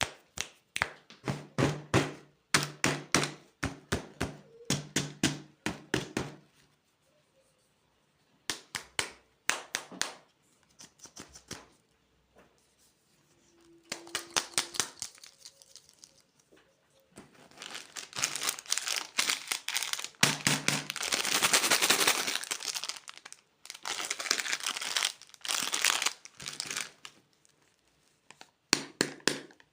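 Plastic candy wrappers being crinkled and torn open by hand, in bursts of rapid crackling separated by short pauses. The densest, loudest crinkling comes about two-thirds of the way through.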